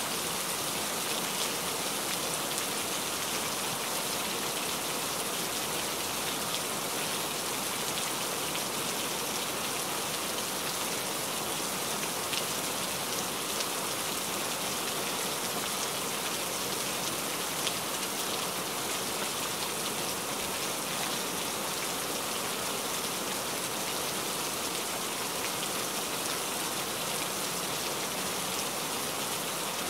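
Steady rain falling on forest leaves: an even hiss with faint ticks of single drops.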